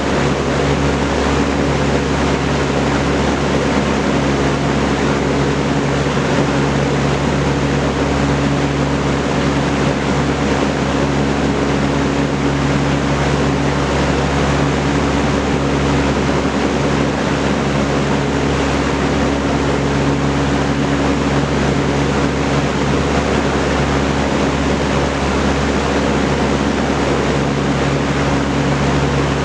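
Vintage Kenmore Roll-A-Matic 20-inch reversible box fan with a four-blade propeller running steadily: a loud, even rush of air over a steady low motor hum.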